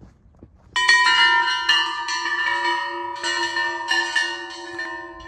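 Large hanging metal tube chimes struck suddenly about a second in, several tubes ringing together at different pitches. They are struck again a few times as they swing, and the ringing fades near the end.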